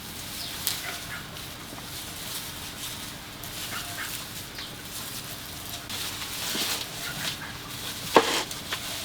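Scattered animal calls with short, irregular sounds, and one sharp, loud sound about eight seconds in.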